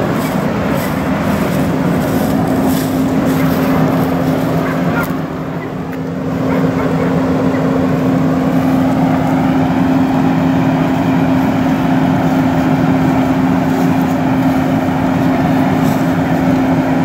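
A vehicle engine running steadily, a constant low drone that holds one pitch throughout, with a broad rushing noise beneath it.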